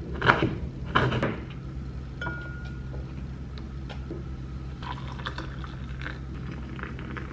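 Kitchen knife cutting fresh ginger on a wooden chopping board, two sharp knocks in the first second or so, then water poured from a kettle into a glass mug in the last couple of seconds, over a steady low hum.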